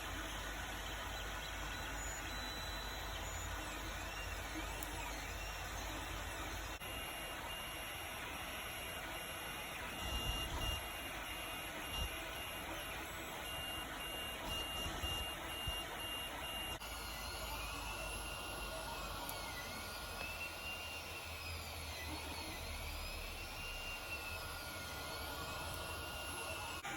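A 3D printer printing: a steady fan hum, with the stepper motors whining in repeated short high pulses for several seconds, then in a whine that rises and falls over and over as the head moves back and forth.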